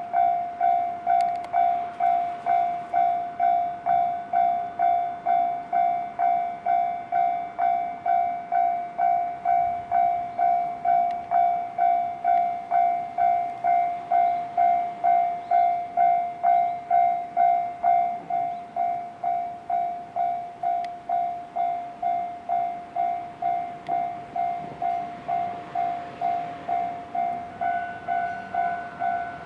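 Japanese railway level-crossing alarm ringing: an electronic bell repeating one clear tone a little under twice a second, steady throughout, dropping in loudness about two-thirds of the way through.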